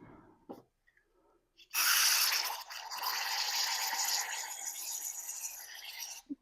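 Aerosol carb cleaner spraying in one long hiss of about four and a half seconds, loudest in its first second, then stopping abruptly. It is being blasted through a carburetor passage to flush out dirt and debris.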